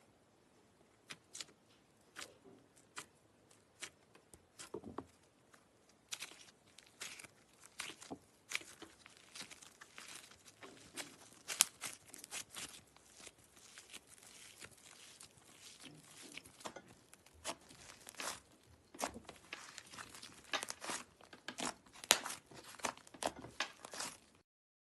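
Slime being squeezed and pressed by hand, giving irregular wet crackles and pops, sparse at first and then thick and fast, until the sound cuts off just before the end.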